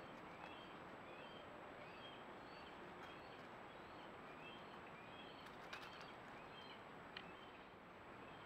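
Faint high chirps, each rising briefly in pitch, repeating about twice a second over a low hiss, with a couple of soft clicks about six and seven seconds in.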